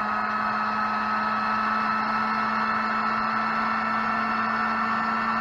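Electric heat gun running steadily: a constant fan-motor whine over rushing air, used to shrink heat-shrink tubing on a crimped wire connection.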